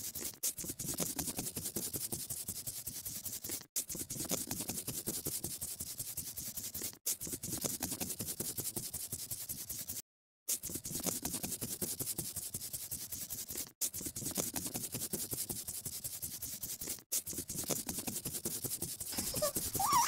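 Scratchy scribbling of colouring on paper, a dense run of quick strokes that breaks off for a moment about every three seconds, like a repeating loop.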